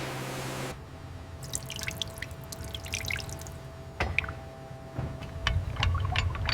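Liquid dripping in quick, irregular drops, then a knock about four seconds in and more scattered ticks over a low rumble.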